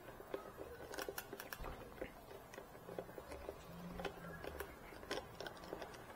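Faint, irregular small clicks and ticks of a hand screwdriver working the Torx bolts loose from a motorcycle's plastic windscreen.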